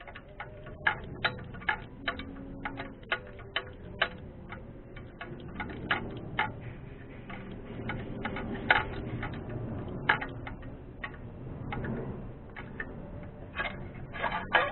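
Hand tools clicking sharply and irregularly, some clicks in quick runs, as the spark plugs are worked on.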